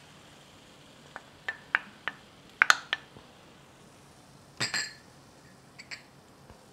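Kitchenware clinking: a ceramic bowl and utensils knocking against a stainless steel pan as coconut milk and cream are poured and scraped in. A quick run of sharp clinks in the first half, a heavier double knock past the middle, and two faint clinks near the end.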